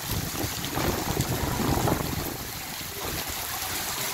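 Heavy rain falling steadily on the streets, with wind buffeting the microphone in gusts, strongest about one to two seconds in.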